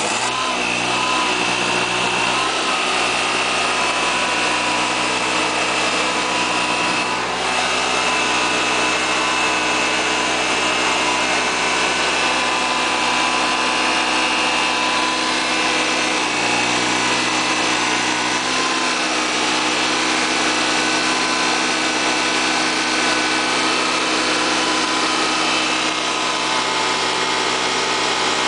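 Freshly rebuilt Honda EV6010 generator engine running steadily just after its first start-up, with a steady high whine above the engine note.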